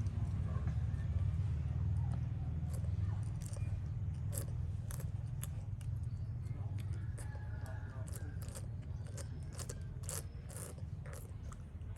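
A small monkey licking and eating a soft dessert: a run of quick wet clicks and smacks that grows busier after a few seconds, over a steady low hum that slowly fades.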